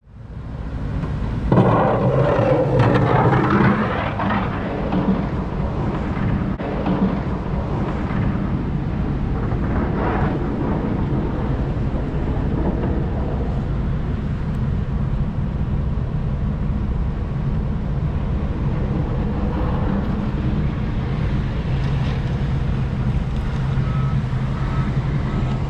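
Pickup truck engine running while the truck drives slowly. It is louder for a couple of seconds near the start, then settles to a steady hum.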